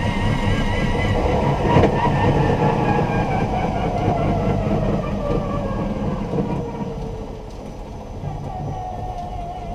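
Electric drive motor of a converted BMW E46 whining and falling steadily in pitch as the car slows, over heavy road and drivetrain rumble in a stripped-out cabin. There is a single knock about two seconds in.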